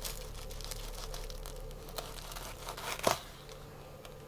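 Large kitchen knife sawing through the crisp breadcrumb crust of a fried chicken cordon bleu, a faint crackling crunch with small ticks. It ends in one sharp knock about three seconds in, as the blade goes through onto the plastic cutting board.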